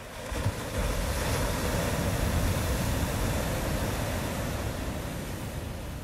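Ocean wave breaking: a surge of surf noise with a deep rumble that builds about half a second in, stays loud, then slowly washes away.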